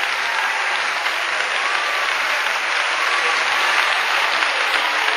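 Congregation applauding steadily in response to the preacher.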